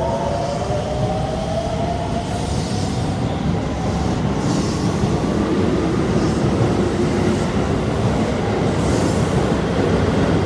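Hokuso Line 9800-series electric train pulling away from the platform. Its motor whine rises in pitch as it gathers speed, over a steady rumble of wheels on rail, with a rush of noise every couple of seconds as the cars go by.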